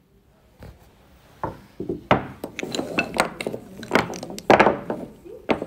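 Wooden wood-therapy massage tools knocking and clattering against one another and the table as they are handled, a string of irregular sharp knocks that start faint and grow louder after about a second and a half.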